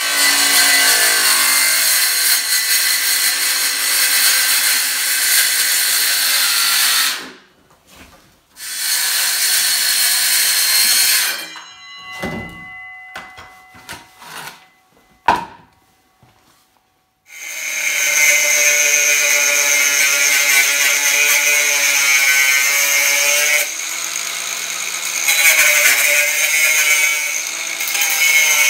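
A circular saw spins up and cuts through a black plastic ventilation duct in two passes, stopping between them. After a few seconds of handling and a sharp knock, an angle grinder with a cutting disc runs steadily, trimming the outer rim off a plastic duct end cap.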